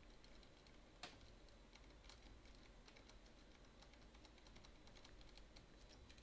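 Faint, irregular ticking and clicking as magnetic picks are worked over a MIWA magnetic camlock under turning tension, the lock's magnetic pins clicking, with a sharper click about a second in. The clicks keep going under tension, which the picker takes to mean those pins are not binding.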